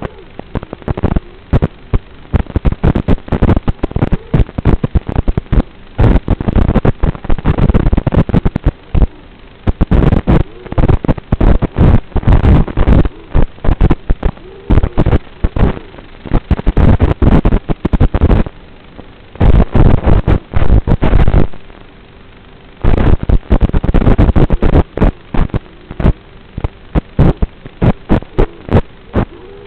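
Audio channel of an analog FPV video receiver: a steady hum under loud, irregular bursts of crackling static, with a few short lulls. This is noise and interference on the racing drone's analog video link, not sound picked up by a microphone.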